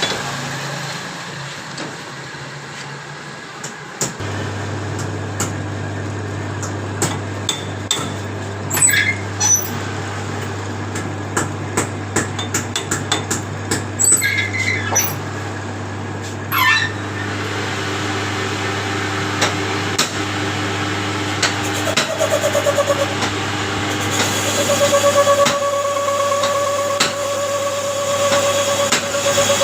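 Metal hand tools knocking and clinking on tractor differential parts, irregular taps and strikes over a steady low hum; in the last third a steady higher whine joins in.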